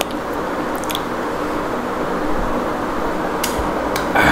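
Steady background hum and hiss with a faint steady tone, over which come a few soft clicks and squishy mouth sounds of someone eating rice and curry by hand.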